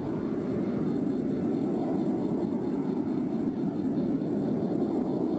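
A steady, low noise with no distinct tones and no breaks.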